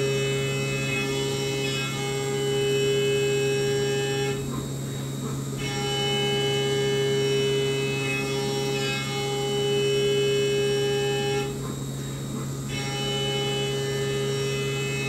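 CNC mill's spindle and end mill cutting a copper block under flood coolant: a steady machine hum with a high whine of several tones over it. The higher cutting tones drop out briefly twice, about four seconds in and again about eleven seconds in.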